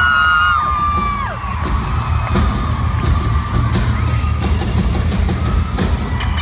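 Loud music with a heavy, pulsing low end. High voices hold long whooping notes that drop off in pitch about half a second and a second and a half in, over crowd noise.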